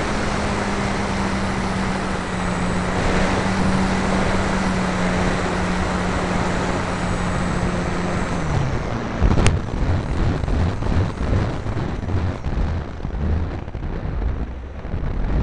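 Electric motor and propeller of a ParkZone P-51D RC plane droning steadily, heard with heavy wind rush on the canopy-mounted camera. A little past halfway the motor winds down and stops, leaving wind noise with a sharp click and a run of irregular knocks and bumps from the airframe.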